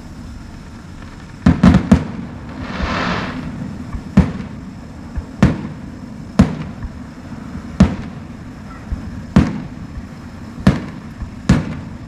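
Fireworks display going off: a run of booming bursts about every one to one and a half seconds, with three in quick succession early in the sequence and a crackling hiss about three seconds in.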